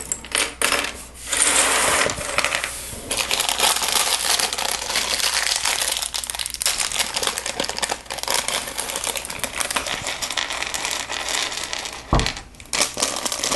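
Small plastic Lego pieces clattering and rattling as they spill out of an opened parts bag onto a surface, a dense run of small clicks with plastic bag rustling. A single low thump comes near the end.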